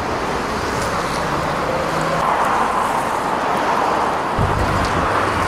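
Steady city traffic noise: a wash of passing cars, with a deeper rumble joining about four seconds in.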